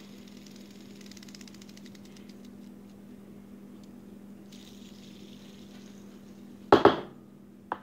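A fidget spinner spinning, a fine rapid ticking whir. Near the end come two loud sudden knocks close together, then a single sharp click.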